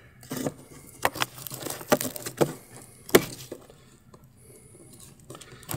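A dry stick knocking and scraping against a robot lawnmower's plastic bumper and wheel as it is pushed into the gap between them: a handful of sharp, separate clicks and taps, the loudest just after three seconds in, then only faint scraping.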